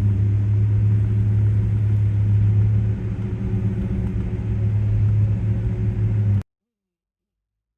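Car engine running with a steady low hum that holds an even pitch, then cuts off abruptly about six and a half seconds in.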